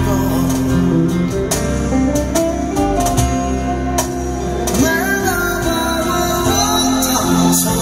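Live cover of a slow ballad played through PA speakers: an electric guitar picks melody and chords over accompaniment, with a singer's voice coming in at times.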